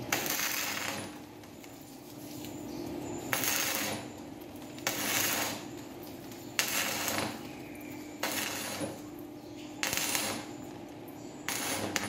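Stick (arc) welding on a steel door: the electrode's arc crackles and sizzles in about seven short bursts, each half a second to a second long, roughly every one and a half seconds, as the arc is struck and broken to tack-weld a steel fitting.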